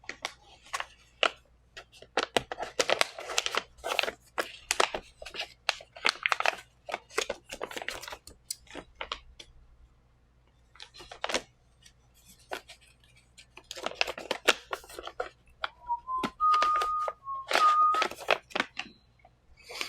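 Keycaps and their plastic packaging being handled: irregular clicks, small knocks and crinkling, pausing briefly in the middle. Near the end come a few short electronic beeps in two pitches.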